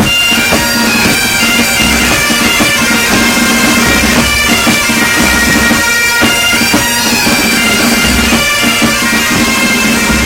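Military pipe band playing: bagpipes carry a tune over their steady drone, with drums beating along.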